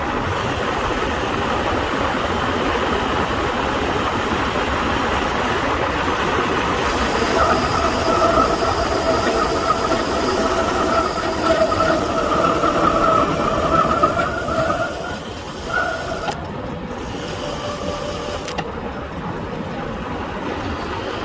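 Bicycle disc brakes squealing as they are applied on a fast descent: a steady high squeal with an overtone, from about seven seconds in until about sixteen seconds in. Loud rushing wind and road noise runs under it throughout.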